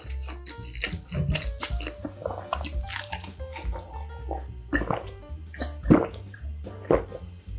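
A person gulping water from a glass, with swallows at about one-second intervals in the second half, over background music.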